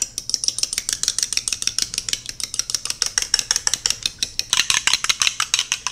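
A metal fork beating a raw egg in a small ceramic dish, its tines clicking rapidly and evenly against the sides of the dish.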